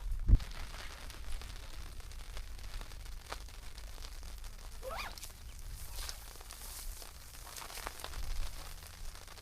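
Rainy lakeside ambience: scattered drops tapping on a tarp over a low rumble, with a dull thump right at the start. About five seconds in there is a single short rising bird call.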